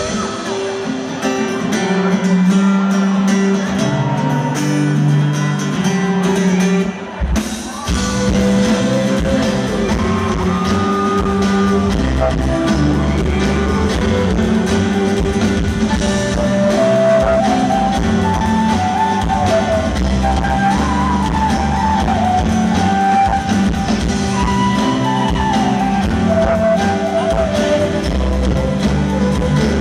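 Live rock band playing. A sparse opening with a lead melody over guitar, then after a short break about seven seconds in, drums and bass come in with the full band.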